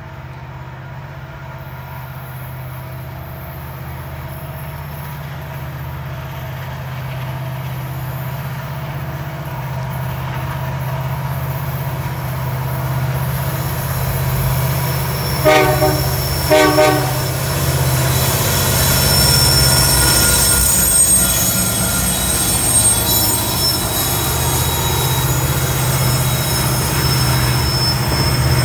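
CN diesel freight locomotives approaching, their engine drone growing steadily louder. About halfway through the horn gives two short blasts. The train then passes with its wheels squealing on the rails.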